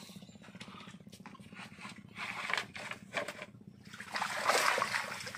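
Water splashing and dripping as a wire-mesh keep basket full of tilapia is lifted out of the water, the splashing heaviest near the end, after scattered knocks and splashes. A low steady hum runs underneath.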